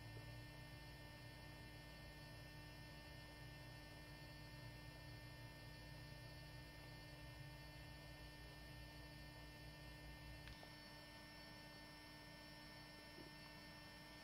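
Near silence with a steady faint electrical hum, with a faint tick about ten and a half seconds in.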